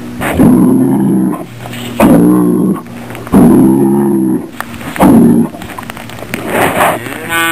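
Bucking bull bellowing in low, rumbling moans: four calls of about a second each in the first five seconds, then quieter. It is the challenge call of a bull pawing the dirt and horning the ground.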